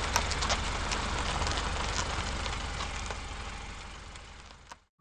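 Compact car's engine idling: a steady rumble with a few light ticks, fading down over the last second and cutting off just before the end.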